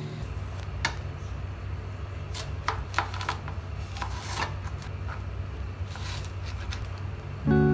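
Kitchen knife cutting through a watermelon on a cutting board: a few scattered crunching slices and taps of the blade, over a low steady hum. Background music comes in near the end.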